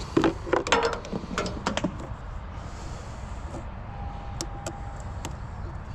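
Quick sharp clicks and taps of pliers working the spring hose clamps back over the fuel hoses at the new fuel filter, mostly in the first two seconds, then a few single ticks.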